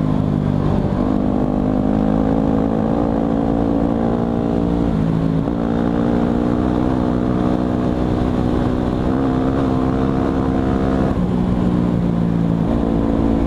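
Motorcycle engine running at near-steady revs while riding, its pitch stepping slightly a few times as the throttle changes.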